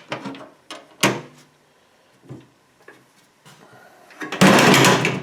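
Old metal toolbox being opened by hand: a click, then a sharp knock about a second in, a few faint clicks, and near the end a loud rough scraping clatter lasting almost a second.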